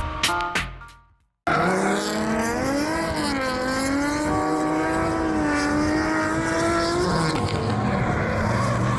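A drift car's engine held at high revs, its pitch swinging up and down with the throttle, over a steady hiss of tyre noise during a drift. It starts abruptly about a second and a half in, after a short fade to silence.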